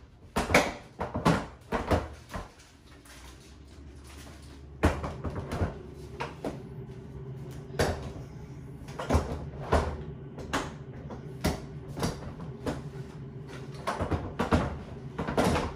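Irregular sharp plastic clicks, knocks and rattles of a Bugaboo Turtle One by Nuna infant car seat and its parts being handled and fitted together.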